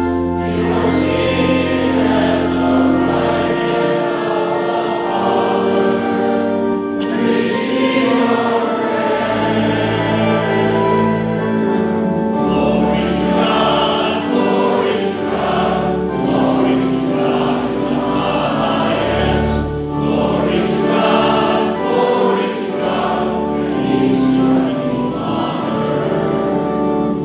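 A congregation singing a hymn together over a sustained instrumental accompaniment, long held chords with low bass notes changing every few seconds.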